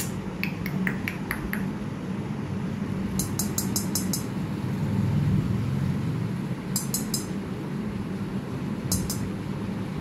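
Rose-ringed parakeet's beak tapping and nibbling at a metal bowl held up to it, giving small clinks and quick runs of sharp clicks several times, over a steady low hum.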